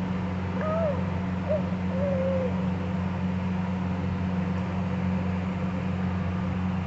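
A baby cooing in a few short, arching sounds during the first two seconds or so, over a steady low hum.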